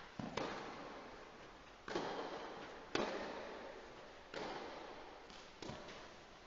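Tennis rally on a clay court: a racket strikes the ball about every second or so, a run of sharp cracks, each with an echoing tail from the covered hall.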